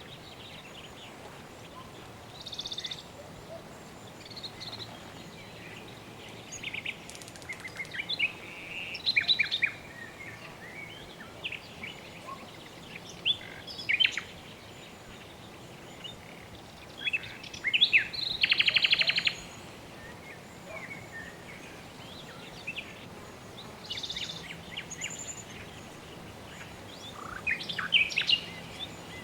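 Birds chirping and calling in short, scattered whistles, with a rapid buzzy trill near the middle, over a steady soft background hiss.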